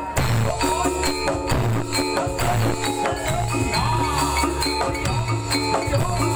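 Javanese gamelan music accompanying a jathilan (kuda lumping) horse dance: metallophone notes in a steady repeating pattern over drum strokes and a sustained low tone.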